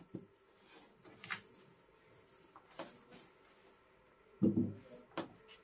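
Whiteboard being wiped clean with a duster: faint rubbing and a few soft knocks under a steady, pulsing high-pitched trill, with one short, louder low sound about four and a half seconds in.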